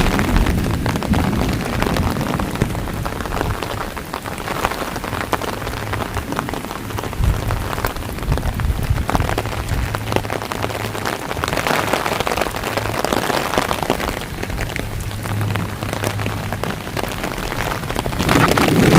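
Heavy rain pouring down in a thunderstorm downpour, a steady dense hiss of drops hitting surfaces, swelling louder near the end.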